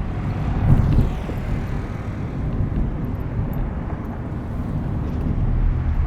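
Car driving: a steady engine and road rumble.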